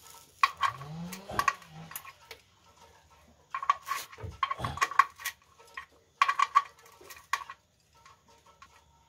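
A metal wrench working the oil drain plug on the engine's sump as it is tightened: three bursts of light metallic clicking and clinking.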